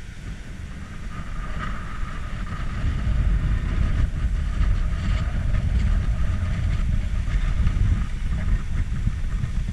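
Strong wind buffeting the camera microphone: a loud, steady, rumbling roar that grows louder over the first few seconds.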